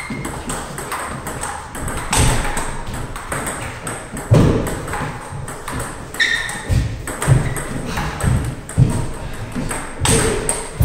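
Table tennis rally: the ball clicking back and forth off the rackets and the table, with heavier thuds of the players' feet on the wooden floor.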